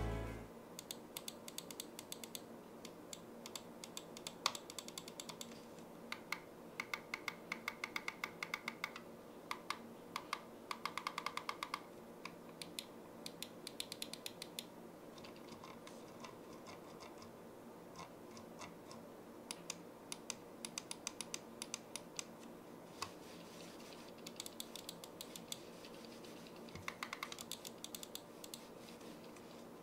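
Buttons of a Delux M800 Pro gaming mouse being clicked: runs of quick, crisp clicks with pauses between them.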